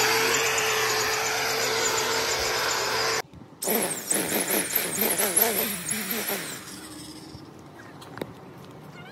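Corded electric string trimmer running steadily as it cuts grass along a lawn edge, cut off suddenly about three seconds in. It is heard again briefly with a wavering pitch, then dies away about seven seconds in.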